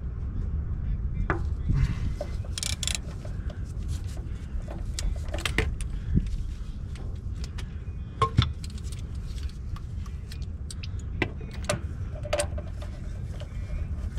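Scattered metallic clinks and knocks of hand tools and parts being handled, over a steady low rumble.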